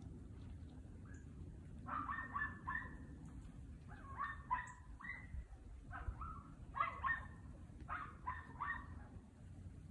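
Miniature dachshund barking in quick runs of three or four high yaps, several runs a second or two apart, as it works a brush pile that holds game.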